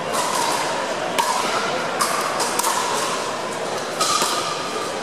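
Pickleball rally: paddles hitting the hard plastic ball, several sharp pops about a second apart, echoing in a large gym hall.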